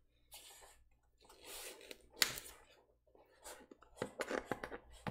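Small cardboard shipping box being picked up and handled: cardboard brushing and scraping, a sharp knock about two seconds in, and a few light taps near the end.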